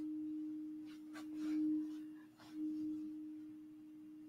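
Crystal singing bowl ringing one steady, low-pitched tone that swells and fades several times.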